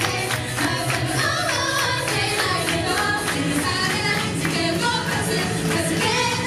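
Upbeat idol pop song performed live: female voices singing over a backing track with a steady beat.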